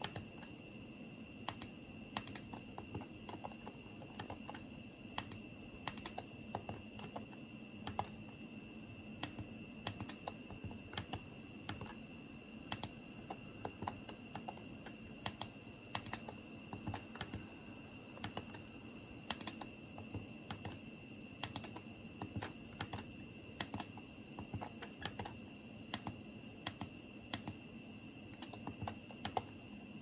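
Buttons on a Daikin wired air-conditioner remote controller being pressed over and over, short irregular clicks about two to three a second while paging through its menu screens. A faint steady high whine sits underneath.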